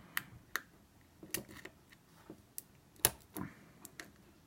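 Wafer lock being single-pin picked with a hook and tension wrench: irregular small metallic clicks and taps as the pick sets the wafers, about a dozen over the span, the loudest about three seconds in.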